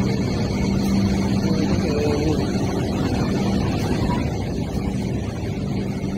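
Hong Kong Light Rail Phase 4 light rail vehicle running close by, with a steady low hum over continuous rumbling noise and a few faint, high steady tones.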